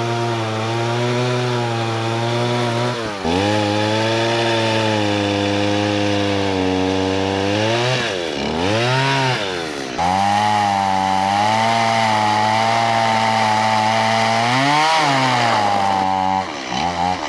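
Chainsaw cutting through a log, its engine note wavering as it works through the wood and dropping away and revving back up about three seconds in, twice between eight and ten seconds, and again near the end.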